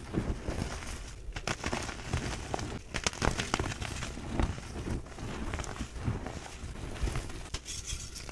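Reformed gym chalk being squeezed and crushed by hand, clumps of powder crumbling with irregular soft crunches and crackles, and a sharper crack near the end.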